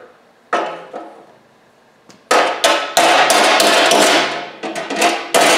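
Body hammer striking an 18-gauge steel repair panel clamped in a sheet-metal brake, hammering it into shape. Two separate taps come first; from about two seconds in, a steady run of ringing metal blows follows, about three a second.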